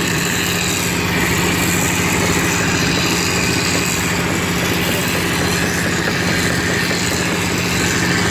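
Wall plastering machine running steadily with a constant hum.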